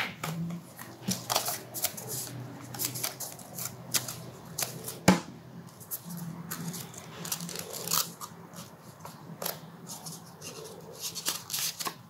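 Folded paper being handled and pressed together as an accordion-pleated paper fan is glued in the middle, rustling in short irregular bursts, with a single sharp tap about five seconds in.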